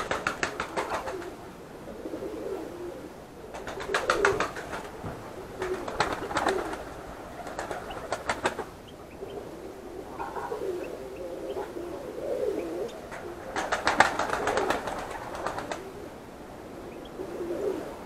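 Caged European goldfinches and other small finches calling in short bursts of rapid, rattling twitter, five or so of them, the longest about two seconds. Between the bursts a pigeon coos low.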